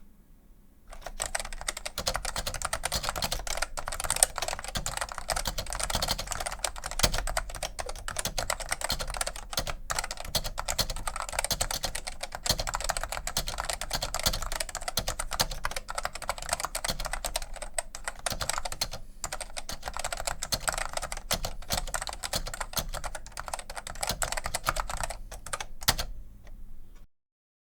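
Steady, fast typing on a Franklin FKB-3 keyboard's Multitech foam-and-foil keyswitches, a dense run of key clicks with a couple of brief pauses. It starts about a second in and stops abruptly near the end.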